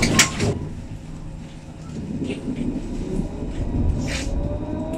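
Alstom Citadis 302 tram heard from the driver's cab: a steady low running rumble, with a short loud burst of noise just after the start. In the last second or so an electric traction-motor whine rises in pitch as the tram picks up speed.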